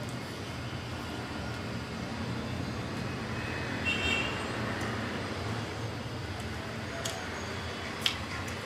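Steady low background rumble, with a few sharp clicks near the end.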